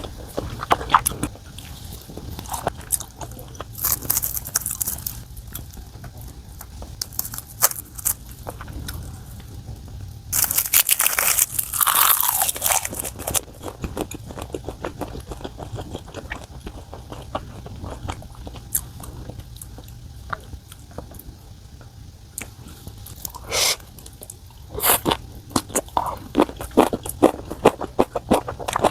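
Close-miked eating sounds: a person chewing and crunching food in many small clicks. There is a louder rush of noise about ten seconds in and another, briefer one about twenty-three seconds in.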